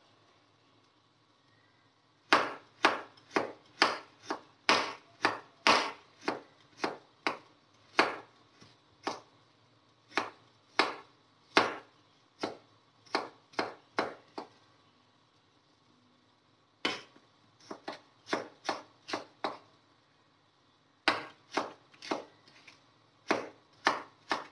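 Chef's knife cutting ginger slices into strips on a wooden cutting board: a run of sharp knocks about two a second, starting a couple of seconds in, with two short pauses between runs.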